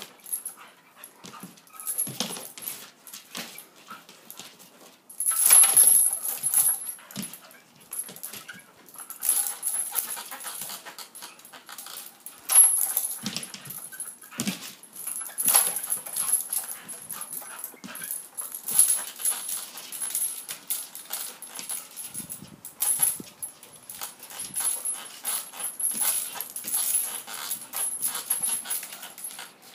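A dog making sounds in irregular bursts as it jumps at and hangs from a hanging rope toy, the loudest burst about five seconds in.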